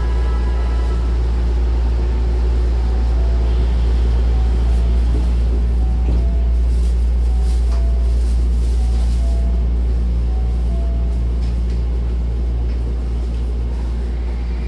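Hankyu train car standing at the platform with a steady low hum, while a two-note door-closing chime alternates high and low over and over for several seconds. The sliding doors shut with a thump about six seconds in, and a gliding whine from the train's motors starts near the end.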